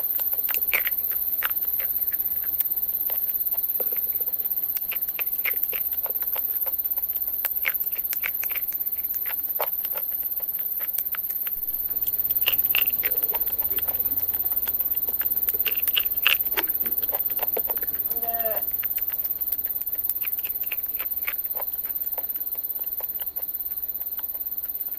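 Crispy fried chicken being bitten and chewed close to the microphone: a steady run of sharp crunches and crackles, with a short pitched sound about 18 seconds in.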